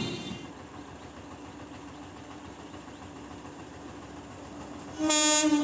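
A single short blast, about half a second long, of an approaching EMU local train's horn about five seconds in, a steady pitched note with many overtones. Before it, the noise of a passing train fades out within the first half second, leaving a low, steady background.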